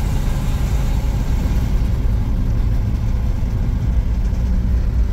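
1969 Chevy C50 truck engine running steadily under way, a deep even drone with road noise mixed in, heard from inside the cab.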